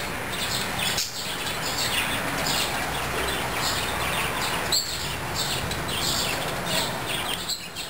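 A chorus of many birds chirping and twittering over a steady background hiss, fading out near the end.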